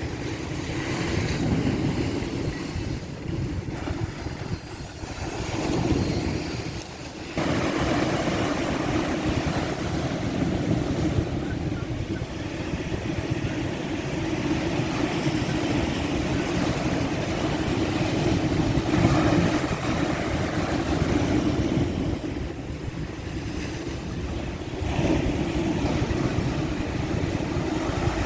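Ocean surf at high tide: waves breaking and washing up the beach in a continuous, rushing noise with a low rumble. It surges and eases, getting suddenly louder about seven seconds in and easing off briefly near the end.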